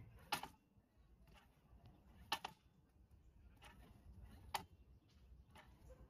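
Sharp wooden knocks as short pieces of 2x4 lumber are set down and pushed against a miter saw's fence and table: three louder knocks about two seconds apart, with fainter taps between them.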